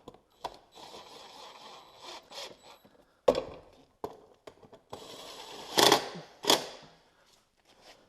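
Tool work tightening down a fastener: stretches of steady mechanical noise broken by knocks, with a sharp knock about three seconds in and the loudest bursts around six seconds in.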